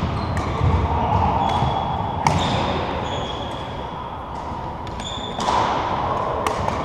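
Badminton court sounds echoing in a large hall: sharp racket-on-shuttlecock hits, the strongest about two seconds in and again after five seconds, with short sneaker squeaks on the wooden floor.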